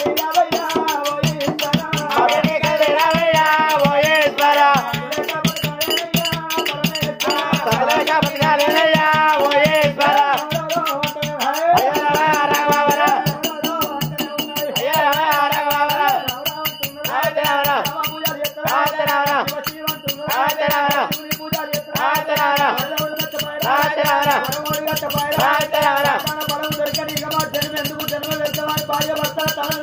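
Oggu katha, the Telugu folk ballad tradition: a voice sings the narrative over fast, continuous rattling percussion.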